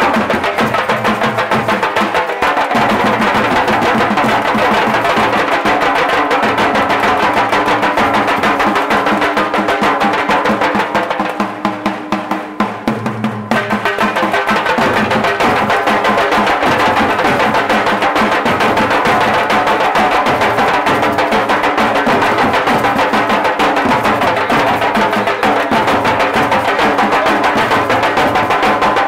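Nasik dhol drumming: a group of small drums played with thin sticks over a big barrel dhol, beating fast and without a break. About eleven seconds in, the deep drum drops out and the beat thins for a couple of seconds, then the full group comes back in.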